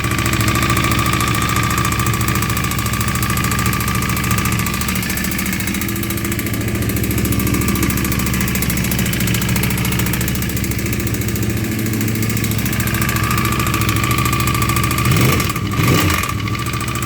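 2009 Yamaha YZF-R1's crossplane inline-four engine idling steadily, blipped twice near the end, with a knock that the owner suspects may be rod knock.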